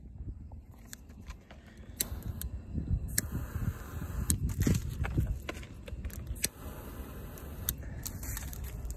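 Handling noise from a phone being carried and moved about: a low rumble with scattered clicks and scrapes, getting busier and louder about two to three seconds in.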